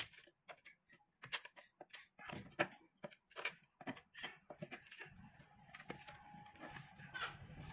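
Steel chisel cutting and prying chips out of a rectangular recess in a wooden slingshot blank: a run of irregular scrapes and small clicks, faint. A steady low hum comes in about five seconds in.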